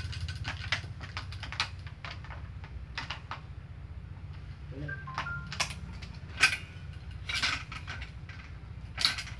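Badminton racket being strung by hand on a stringing machine: irregular clicks and taps of clamps, tools and string being handled, with two sharper snaps, one about two-thirds of the way through and one near the end. A steady low hum runs underneath.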